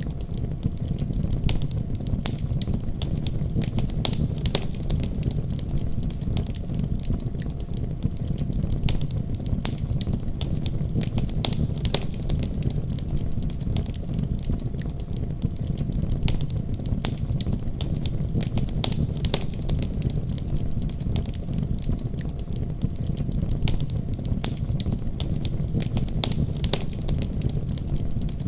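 Fire burning in a fireplace: a steady low rumble of flames with frequent irregular crackles and pops.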